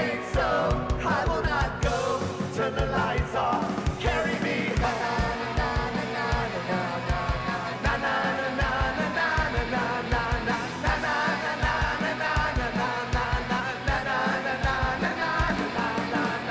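A rock band playing live, with drums keeping a steady beat under electric guitars, keyboard and sung vocals.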